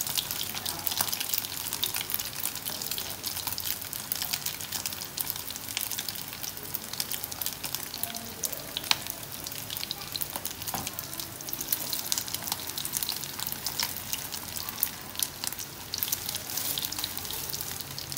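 Vegetarian chả patties frying in hot oil in a pan: a steady sizzle with dense small crackles, and a few sharper clicks partway through.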